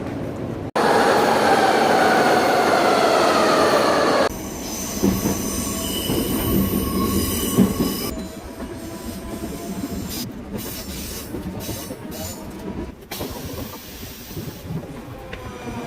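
Metro train running on the rails, with a loud high whine and wheel squeal that falls in pitch during the first few seconds, then a quieter steady running rumble. The sound changes abruptly about a second in and again about four seconds in.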